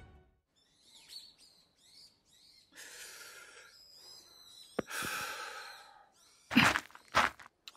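A small object tossed down lands with a light tap on the floor. A few seconds later come a person's sharp, breathy gasps, the loudest sound here.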